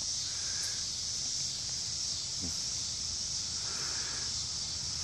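Steady, high-pitched chorus of insects, with a faint low rumble underneath.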